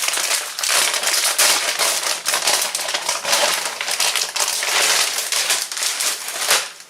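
Plastic and foil trading-card packaging crinkling and crackling as it is handled and torn open by hand. The noise is loud and continuous, then stops near the end.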